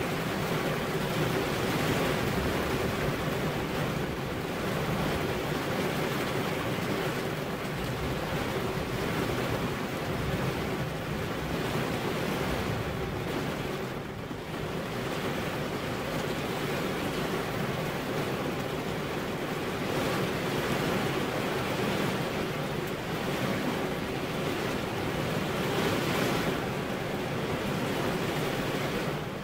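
Heavy rain falling steadily, an even rushing hiss that eases slightly about halfway through and swells again near the end.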